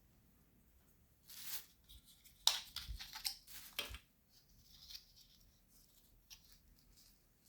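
Hands working plumbing fittings while sealing the joints of a water filter assembly: a short swish about a second in, then a quick run of sharp, scratchy rasps, then lighter clicks and handling noises.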